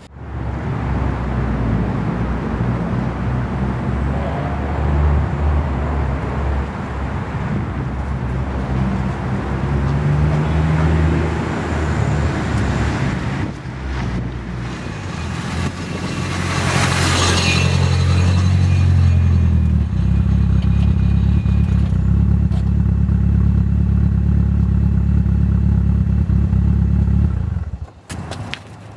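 Car engine running as the car drives by close to the ground, its pitch rising and falling. A loud rush comes as it passes about halfway through, then a steady engine drone that cuts off suddenly near the end.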